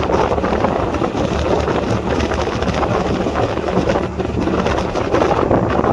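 Boat engine running steadily under heavy wind buffeting on the microphone, a constant low hum beneath a loud rushing noise.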